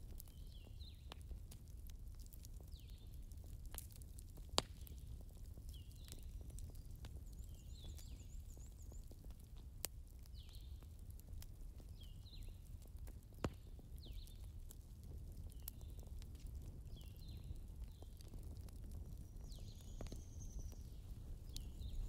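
Soft crackling of a digital fireplace playing from a screen: scattered sharp pops, three of them louder, over a low rumble. Faint high chirps repeat about once a second.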